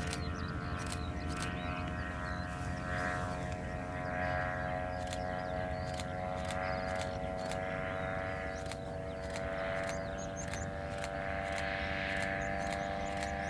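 Viera ultralight airplane in flight, its Simonini Mini 3 two-stroke engine and propeller giving a steady buzzing drone that swells slightly as the plane passes.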